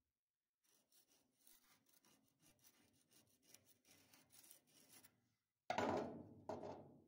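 Faint scratching as a tool is dragged through dried, caked blasting media (wet sand that has set hard in a body-panel seam), followed by two louder strokes near the end.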